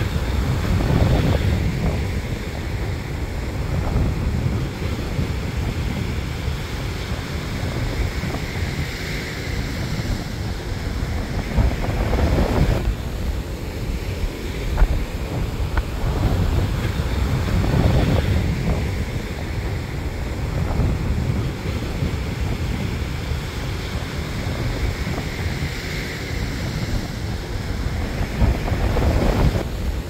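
Surf breaking and washing up a sandy beach, swelling louder every several seconds as each wave comes in, with wind rumbling on the microphone.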